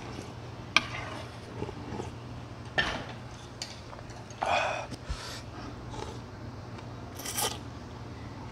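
Eating noodle soup: a metal ladle clinks sharply against the ceramic bowl a couple of times, with sips of broth, and a slurp of noodles near the end.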